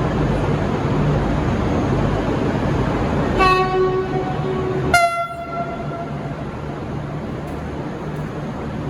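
A V/Line VLocity diesel railcar sounds its two-tone horn over the steady rumble of the train. About three seconds in comes a lower note of about a second and a half with a brief break in it. Then a short, louder, higher note cuts in and dies away quickly.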